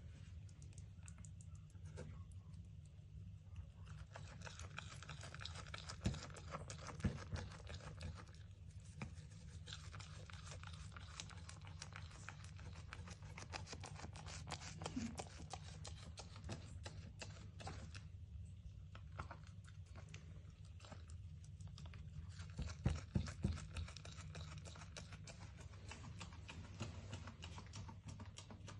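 A baby goat pulling at, tearing and chewing fresh grass in a wooden crate: a dense, faint run of rustling, tearing and crunching, with a few sharper knocks about six to seven seconds in and again about twenty-three seconds in.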